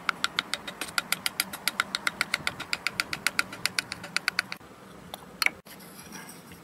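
Quick, even taps on a wooden drift, about six a second, driving an oil seal out of a two-stroke scooter engine's crankcase half. The tapping stops after about four and a half seconds, and one louder knock follows about a second later.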